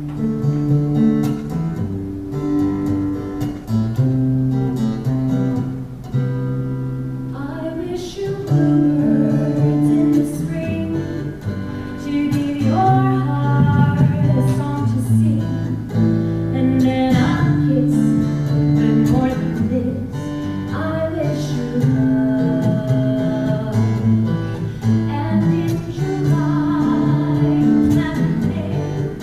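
Music: acoustic guitar strumming the chords of a slow ballad, with a melody moving over them.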